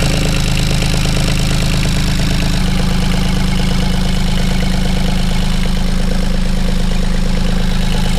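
A sailboat's small inboard engine idling steadily with a fast, even beat, loud and close with the engine compartment open.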